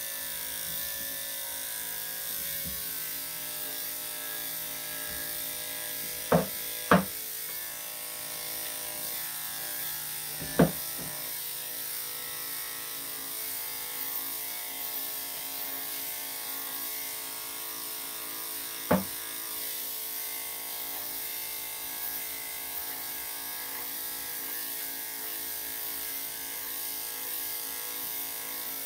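Electric dog grooming clippers fitted with a #3 3/4 blade, running with a steady buzz as they cut through a Bichon/Shih-Tzu's coat. Four sharp clicks stand out: two close together about six to seven seconds in, one about ten and a half seconds in, and one about nineteen seconds in.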